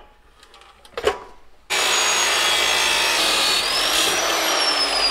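Abrasive chop saw cutting a metal bushing: a knock about a second in, then the saw starts suddenly and runs with a loud grinding hiss. A motor whine over it climbs, then falls slowly as the cut goes on.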